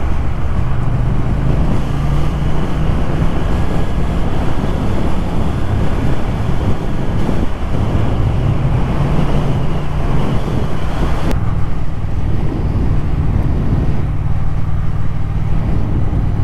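Wind rushing and buffeting over the microphone of a rider at road speed, over the steady low drone of a Triumph Thruxton R's 1200 cc parallel-twin engine. The higher part of the wind rush drops away suddenly about eleven seconds in.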